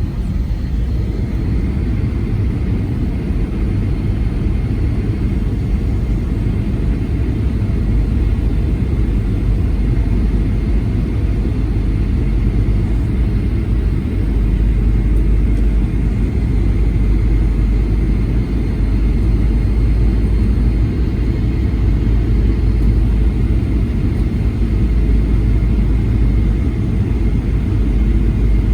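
Steady, loud low rumble of a Boeing 737-900 as heard inside the passenger cabin: jet engine and airflow noise with a faint steady whine above it.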